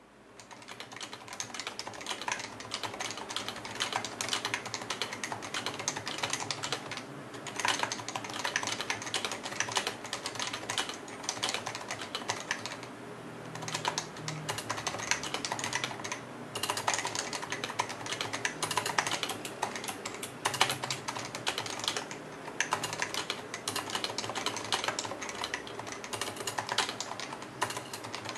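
Continuous fast typing on a Topre electro-capacitive keyboard, a dense run of keystrokes from the rubber-dome switches. It fades in over the first couple of seconds and breaks off briefly about 7 and 13 seconds in.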